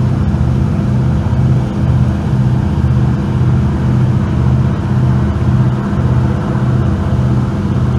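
A motor running steadily, a low hum that swells and fades about twice a second.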